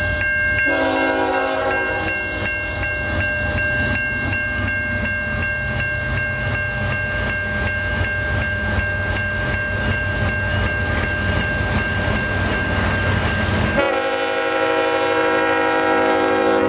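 Railroad crossing bell ringing steadily under the low rumble of approaching CN diesel freight locomotives. The train horn sounds briefly about a second in and again in a long blast near the end as the locomotives reach the crossing.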